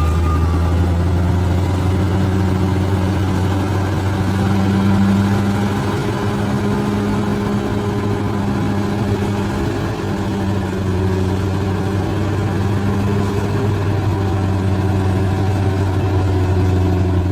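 Large bulldozer's diesel engine running steadily at an even pitch, with a low, constant hum.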